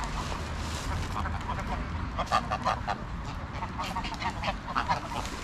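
Greylag geese giving short honking calls, a quick run of several about two seconds in and a few more towards the end.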